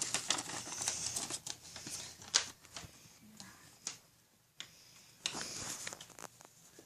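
A sheet of paper being folded and creased by hand: short crisp rustles and crackles, with a quieter pause about two-thirds of the way through.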